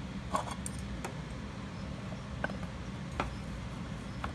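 About half a dozen light clicks and taps from small clear acrylic enclosures being handled, over a steady low hum.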